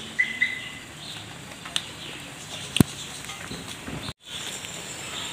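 Quiet outdoor background with a short two-note bird chirp about a second in and a few sharp clicks, the loudest near the middle; the sound drops out completely for a moment near the end.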